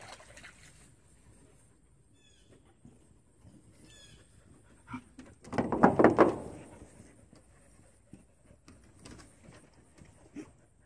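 A loud, pulsing animal call lasting about a second, about six seconds in, with a few small high chirps earlier.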